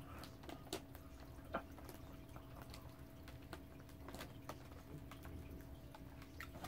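Faint chewing and wet mouth clicks from people eating Oreo cookies, scattered irregularly over a steady low hum.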